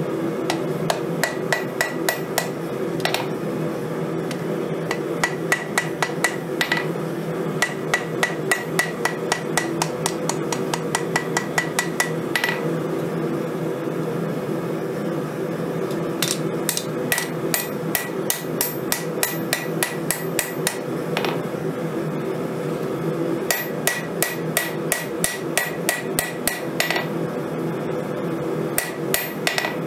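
Hand hammer forging a red-hot steel knife blank on a 132-pound Vevor anvil: runs of quick blows, about three or four a second, many ringing with a high tone, broken by short pauses. A steady low hum runs underneath.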